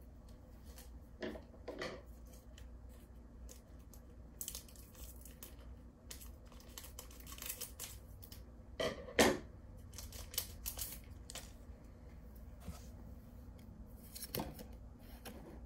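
A Pokémon trading-card booster pack being opened and its cards handled by hand: the wrapper tearing, with scattered short rustles and clicks. The loudest is a sharp knock about nine seconds in.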